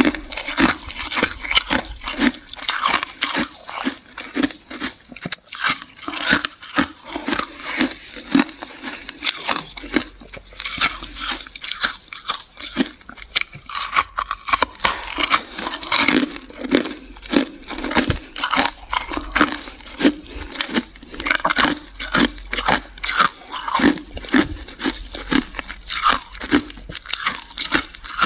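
Dry, flaky freezer frost being bitten and chewed: a dense, irregular run of crisp crunches, several a second.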